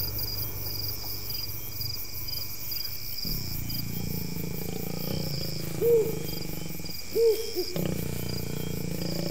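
Low growling from a courting lion and lioness, starting about three seconds in, with two short, louder hoot-like calls about six and seven seconds in, over crickets chirping steadily.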